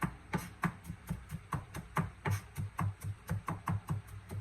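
Kitchen knife chopping on a cutting board in quick, even strokes, about four to five a second.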